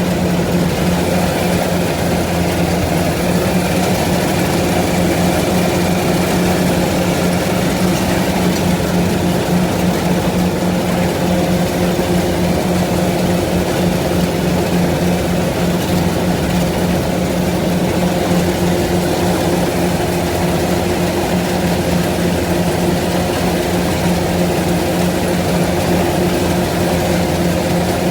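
A heavy farm machine's engine running steadily at an even speed, a constant low drone without pauses or changes.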